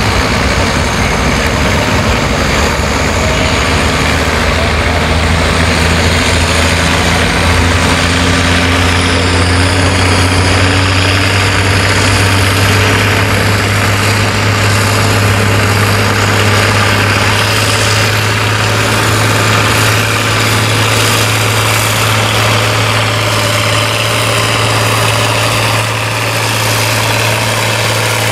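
Turbocharged International Harvester farm tractor's diesel engine running hard under load while pulling a weight-transfer sled. The engine note rises a little about a third of the way in and then holds steady.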